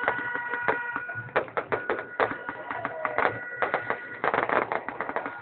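Fireworks going off overhead: a dense, irregular run of sharp cracks and pops from bursting aerial shells. Steady high tones sound through much of it, with a short falling whistle about three seconds in.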